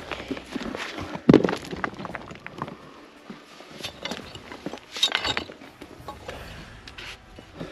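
Stones knocking and clinking against each other, with scrapes, as dry rocky soil is dug out among boulders. There is one heavy knock about a second in and a quick run of clinks about five seconds in.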